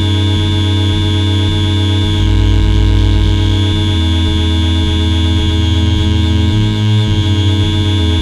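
Electronic drone and noise soundtrack: layered steady synthetic tones over a loud, low pulsing throb that repeats in short blocks, with a hiss high above.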